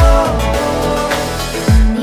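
Background music: a pop song with deep, falling bass-drum hits on a steady beat, about two a second.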